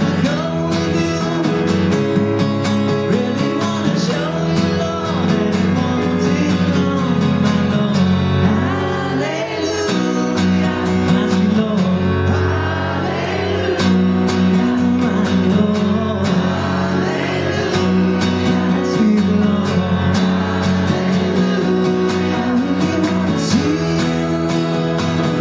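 Live band playing a mid-tempo song: acoustic guitar strummed over bass and keyboard, with a male voice singing.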